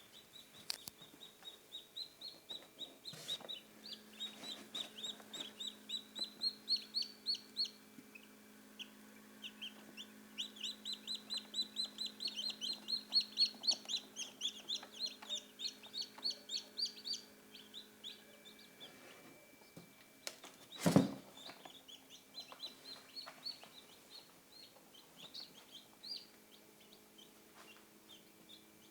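Newly hatched chicks peeping in long runs of short, high-pitched cheeps, several a second, over a steady low hum. A single sharp knock about two-thirds of the way through is the loudest sound.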